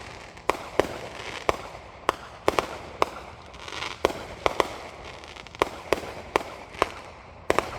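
Fireworks going off: an irregular run of sharp bangs and pops, roughly two a second, over a steady crackle.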